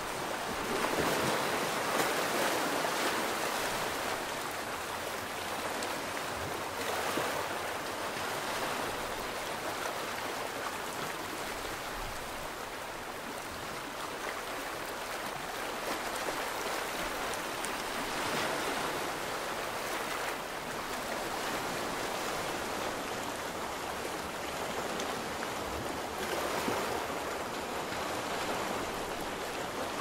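Small sea waves washing in among rocks and onto a sandy shore: a steady hiss of surf that swells every several seconds as a wave breaks.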